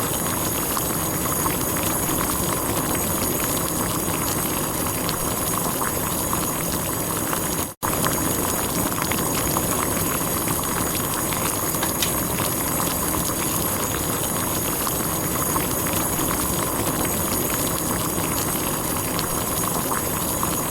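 Water boiling, a steady bubbling dense with small pops, that breaks off for a split second about eight seconds in.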